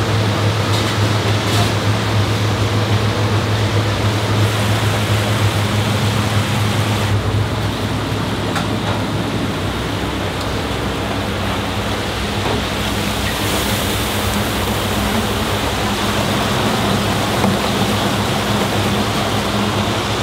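Hot oil in a commercial deep fryer bubbling and sizzling as a basket of marinated chicken necks is fried, over a steady low hum. The sizzling hiss grows brighter about two-thirds of the way in.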